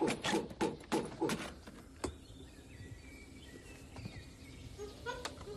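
Quick clattering knocks on metal as a dog clambers over the levers and controls of a small locomotive, then a quieter stretch with faint bird chirps, and a couple more knocks near the end.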